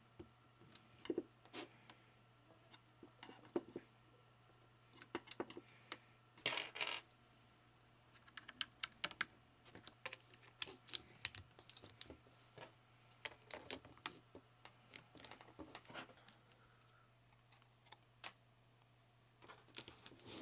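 Irregular plastic clicks and clacks of custom keyboard parts being handled and pressed, with a brief scrape about six and a half seconds in.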